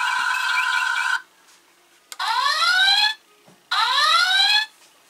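Sound effects from the Playmates Star Trek USS Enterprise NCC-1701 toy's built-in speaker: a steady electronic tone that cuts off about a second in, then two rising alarm whoops, each about a second long, like the ship's alert klaxon from the original series.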